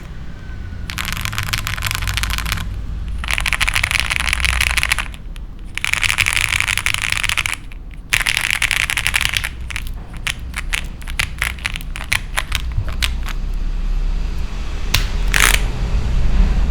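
Typing on a Rita65 gasket-mount mechanical keyboard with lubed Gateron X switches, a poly plate and GMK keycaps. It starts with three dense bursts of rapid keystrokes, then slows to separate key presses, with one louder stroke near the end.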